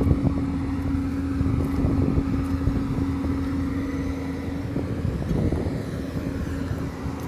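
Excavator's diesel engine running with a steady hum, with irregular mechanical knocks underneath.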